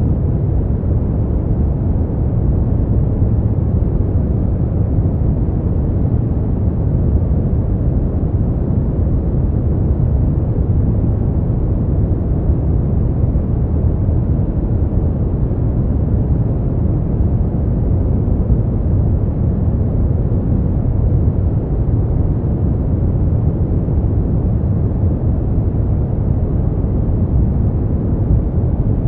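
Steady, unchanging noise for sleep, deep and rumbling, with most of its weight in the low end and no high hiss.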